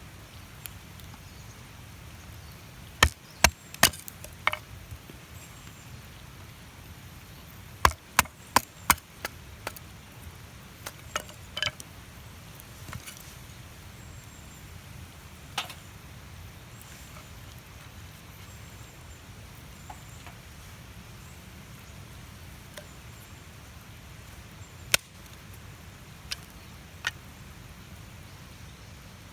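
Sharp knocks or cracks in quick clusters, with a few single ones later, over a steady low background noise.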